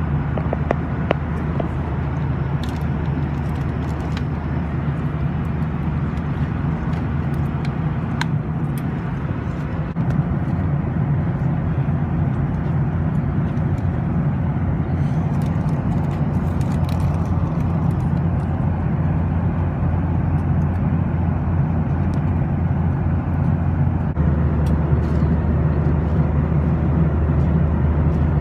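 Steady low rumble of a Boeing 737 airliner's cabin in flight, engine and airflow noise heard from a passenger seat. It gets slightly louder twice, about a third of the way in and again near the end.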